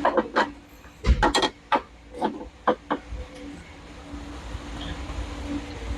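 A quick run of sharp knocks and clacks over the first three seconds, then the steady hum of several 3D printers running, with a low steady tone.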